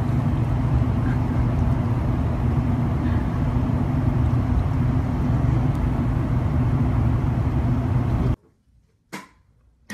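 Steady low rumble of a running vehicle, with a faint hum, that cuts off abruptly near the end; a single click follows.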